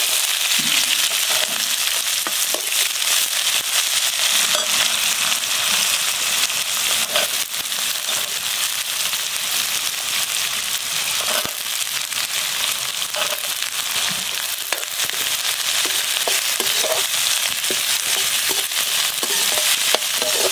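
Chopped onions and green capsicum frying in hot oil in a black iron kadai: a loud, steady sizzle that starts suddenly as the onions drop in, with the steel slotted spatula scraping and clinking against the pan as they are stirred.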